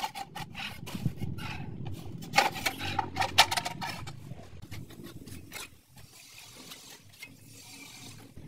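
Manual rail tile cutter working a ceramic tile: gritty scraping and clicks as the scoring wheel runs over the glaze and the tile is snapped, the sharpest clicks about two and a half to three and a half seconds in, then fainter scraping.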